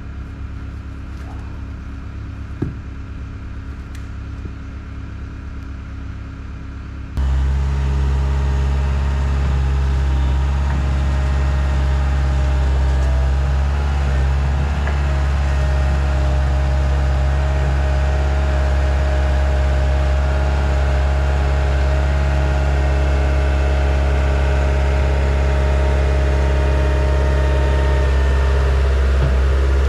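Diesel skid steer engine running steadily, becoming much louder and closer about seven seconds in.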